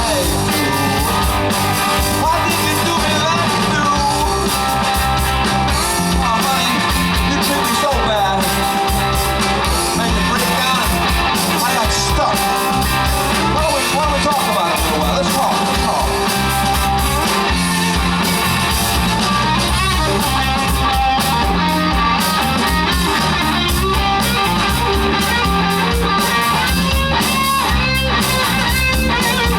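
A live rock band playing through amplifiers: electric guitar, bass and drums with a steady beat, and a singer's voice in the mix.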